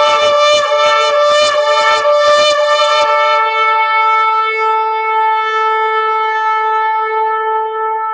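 Shofar (ram's-horn trumpet) being blown: a rapid run of short, choppy blasts, then from about three seconds in one long steady note.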